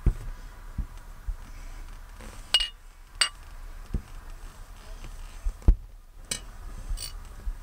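Fireworks going off in the distance: dull low booms at irregular intervals, with a few sharper cracks, the loudest about three-quarters of the way in.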